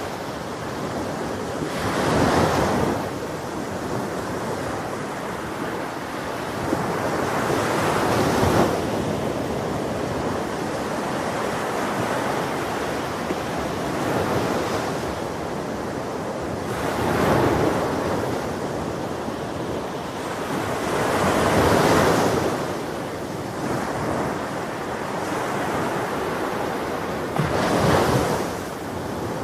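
Ocean waves breaking on a beach, a steady wash of surf with a louder wave every five or six seconds, with some wind noise on the microphone.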